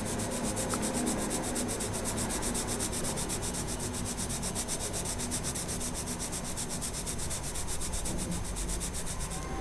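Marco Raffine 1700 coloured pencil shading lightly back and forth on paper: a fast, even run of scratchy rubbing strokes that stops shortly before the end.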